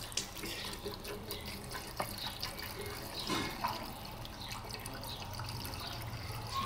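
Water poured from a plastic bottle into an engine radiator's filler neck, a steady pouring stream with a few small clicks of the bottle, as the generator engine's coolant is topped up.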